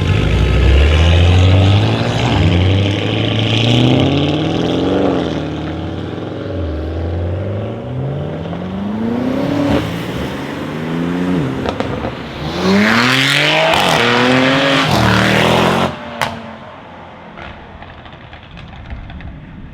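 Audi RS6 C8's twin-turbo V8, with its particulate filter deleted, accelerating hard through the gears. The pitch climbs, drops back at each upshift and climbs again about six times, with sharp cracks at some of the shifts. The sound falls away suddenly about sixteen seconds in.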